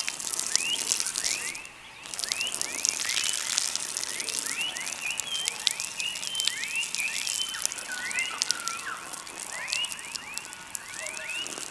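A man urinating, the stream splattering onto dry grass and leaf litter with a crackling hiss that breaks off briefly about two seconds in and stops near the end. Behind it, frogs keep up a steady chorus of short chirping calls.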